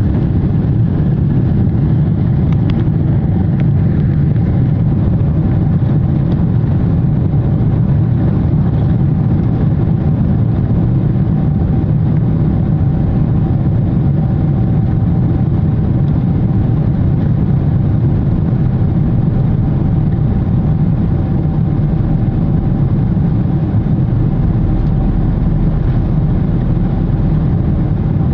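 Aircraft engine noise: a loud, steady low rumble with a faint steady whine above it, holding level without rising or falling.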